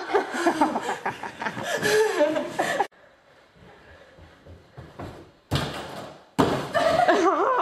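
Voices chattering, then a quiet run-up, then, about five and a half seconds in, a loud noisy thump lasting nearly a second as a gymnast bounces off a trampette and lands in crash mats; voices pick up again near the end.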